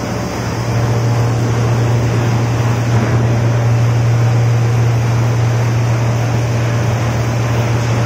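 Stainless-steel vegetable and poultry-carcass washing machine running: a steady low motor hum over the churning, bubbling wash water in its tank.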